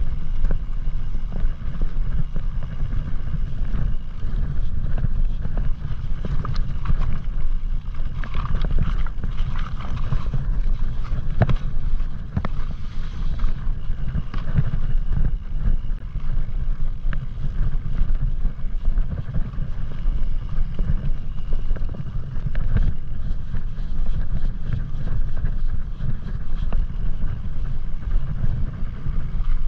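Wind buffeting the microphone as a mountain bike rolls over a snowy, stony trail, with a steady low rumble and many small clicks and rattles from the tyres and bike over the rocks.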